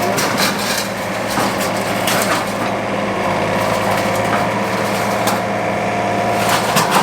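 Excavator diesel engine running steadily, with a held whine over it and scattered sharp knocks and cracks.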